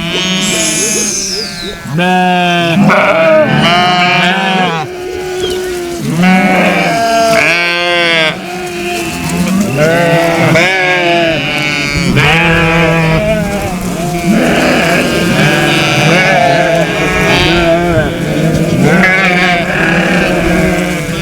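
A large flock of sheep bleating, many loud wavering calls overlapping one after another without a break.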